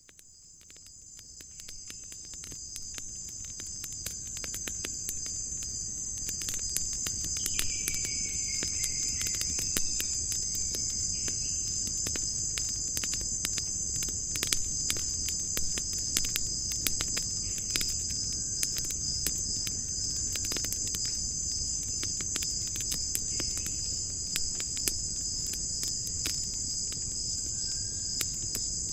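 A steady, high chorus of crickets fades in over the first few seconds and then trills on without a break, with scattered light clicks and knocks over it.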